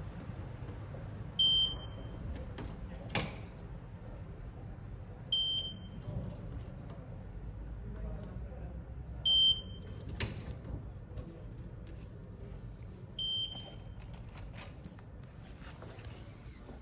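Conventional fire alarm system in alarm during a call-point sounder test, giving a short, high-pitched beep about every four seconds, four times. A couple of sharp knocks fall between the beeps.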